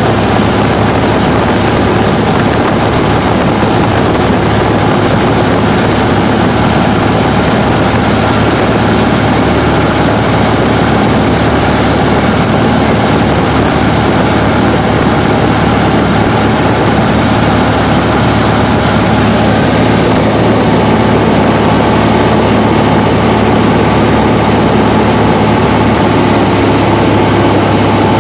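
Cessna 172's piston engine and propeller droning steadily in cruise, heard from inside the cabin with loud, even engine and air noise.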